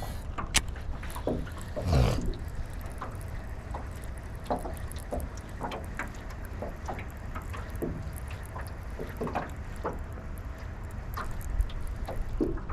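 Choppy waves slapping irregularly against the hull of a small jon boat, over a steady low wind rumble, with one heavier slap about two seconds in.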